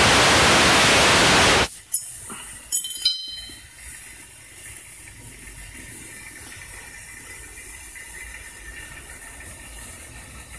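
Steam rushing loudly out of a live-steam model locomotive, cut off abruptly a little under two seconds in. A few light metallic clicks follow, then a faint steady hiss of steam seeping from small leaks.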